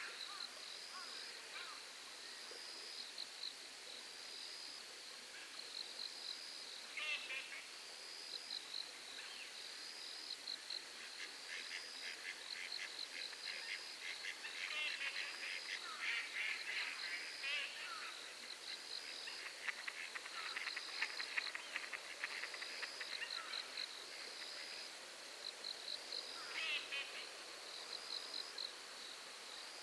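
Night insect and animal chorus. A high chirp repeats about once a second throughout, a denser pulsing trill fills the middle, and a short harsh call sounds about seven seconds in and again near the end.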